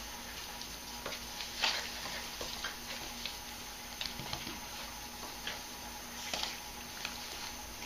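Scattered light clicks and taps, irregular and a second or so apart, from a Dutch Shepherd puppy's claws on a tile floor as it shifts about while being petted.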